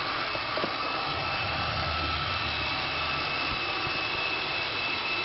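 Roomba robot vacuum running: a steady motor whir with a thin high whine.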